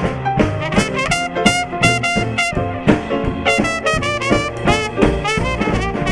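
Dixieland jazz band music with a brass lead over a steady swing beat.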